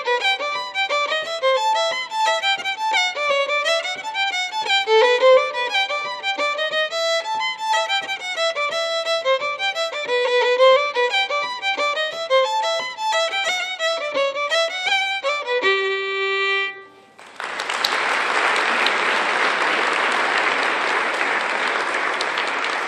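Solo fiddle playing a quick run of notes in a traditional Irish tune, ending on one long held note. About a second later an audience breaks into steady applause that runs on to the end.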